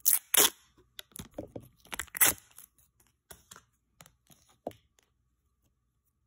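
Hands handling a hard plastic star-shaped container of putty: a run of sharp plastic clicks and crackles, the loudest two right at the start, thinning to a few scattered clicks.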